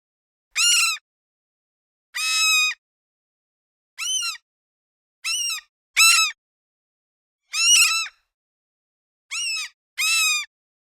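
Gulls calling: eight short, separate cries, each well under a second, spaced one to two seconds apart with silence between.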